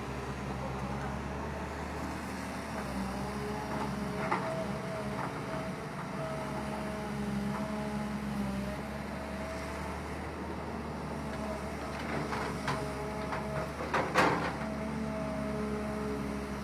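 Excavator's diesel engine running steadily, with a few knocks and clanks and the loudest clatter about fourteen seconds in.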